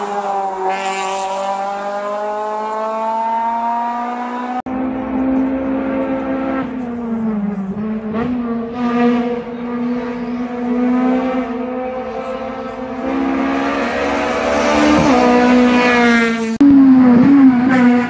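Honda Civic race car's K20 four-cylinder engine revving hard at speed, its pitch climbing and then dropping back several times. Loudest near the end.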